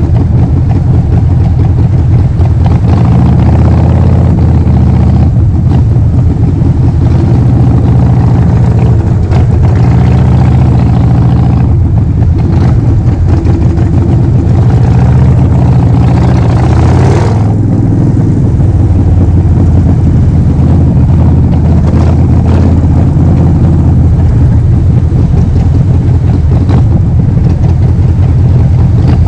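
Harley-Davidson Forty-Eight's air-cooled 1200 cc V-twin running through a Vance & Hines full exhaust system, at varying revs. About two-thirds of the way in, the sound swells and then drops off suddenly.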